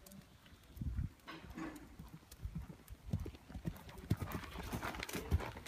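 Hoofbeats of a ridden black cob on a soft riding-arena surface: repeated dull thuds that grow louder as the horse comes closer.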